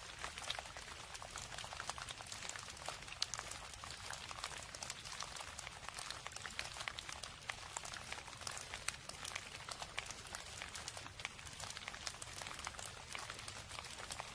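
Steady rain falling, a constant hiss with many small, irregular drop ticks pattering on a surface.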